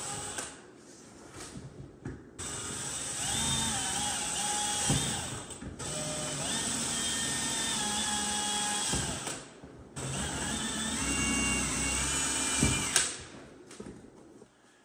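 Power drill boring 3/16-inch holes through a T-Formex canoe hull. It runs in several spells of three or four seconds with short breaks, its whine shifting up and down in pitch, and stops about 13 seconds in.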